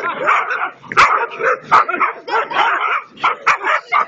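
Several dogs barking and yelping in rapid, overlapping bursts, with a few sharp knocks mixed in: dogs in an attack.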